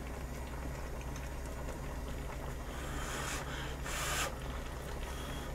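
Udon noodles slurped in two short sucking bursts, about three and four seconds in, over a steady low hum.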